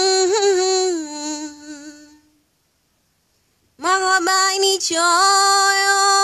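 A woman chanting a Swahili poem (shairi) unaccompanied, in long held sung notes. One phrase fades out about two seconds in, and after a short silence a second held phrase begins near four seconds.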